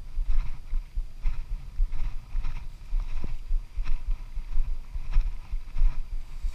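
Low, irregular thumping rumble of wind and handling noise on a wearable action camera's microphone, with faint scratchy scuffs over it.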